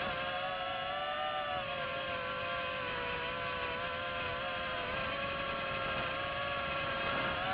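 DJI FPV drone's motors and propellers whining steadily, the pitch wavering up and down slightly as the throttle changes.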